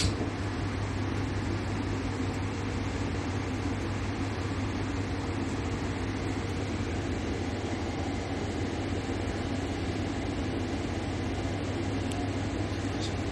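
Diesel railcar's engine idling with a steady low hum while the train stands at a station.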